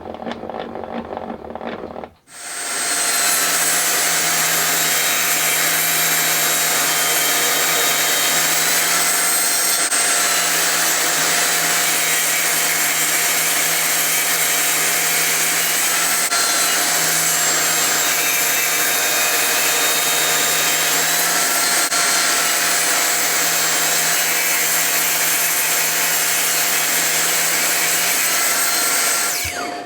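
Electric table saw running with a steady motor whine and blade noise; its pitch sags slightly a few times along the way. It starts abruptly about two seconds in and cuts off near the end.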